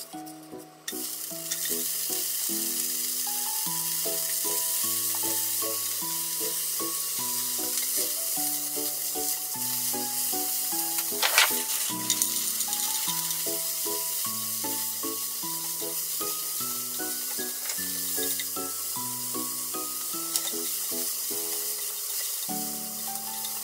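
Spinach sizzling steadily in butter in a hot non-stick frying pan, the hiss starting about a second in as the leaves go into the pan. Frozen mixed vegetables are tipped in about halfway through with a brief sharper crackle, and the frying goes on as they are stirred with chopsticks.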